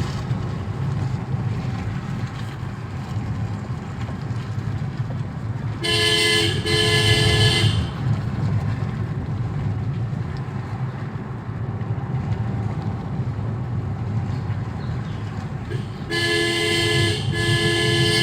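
Steady engine and road rumble of a vehicle on the move, with its horn sounded in two pairs of toots: two about six seconds in, and two more near the end.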